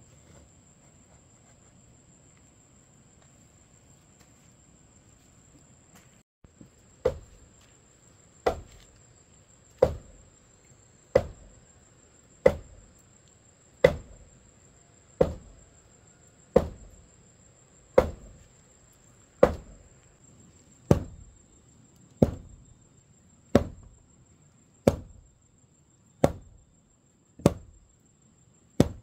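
Steady, regular thuds of a long-handled tamper pounding the earth around a stone pillar footing. The blows start about seven seconds in and come roughly one every second and a half.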